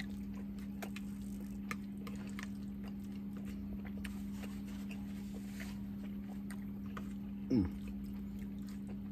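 Steady low electric hum from a running fan, with faint clicks of a fork on a plate while eating. A short sound falling in pitch about seven and a half seconds in.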